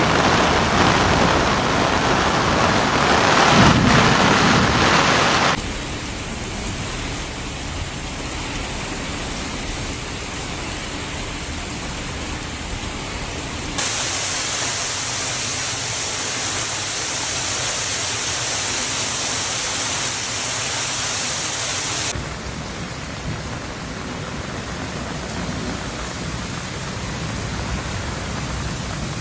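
Heavy rain pouring down as a steady hiss, changing in tone and loudness at each of three abrupt cuts; loudest in the first few seconds.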